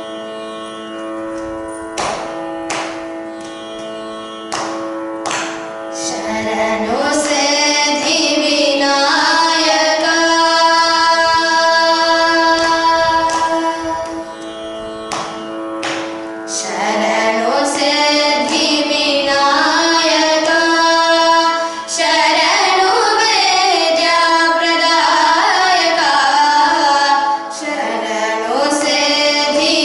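Two female voices singing a Carnatic kriti in raga Hamir Kalyani over a steady electronic shruti-box drone. For the first six seconds or so mostly the drone is heard, with a few sharp clicks. The voices come in strongly about seven seconds in.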